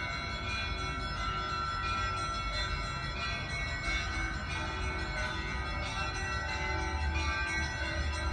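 Orthodox church bells ringing, several bells sounding together and overlapping in a continuous peal. A steady low rumble runs beneath, growing louder near the end.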